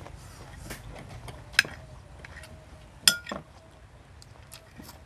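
A metal spoon and chopsticks clinking against a rice bowl. There are three sharp clinks, about a second and a half in and twice around the three-second mark, and one of them rings briefly.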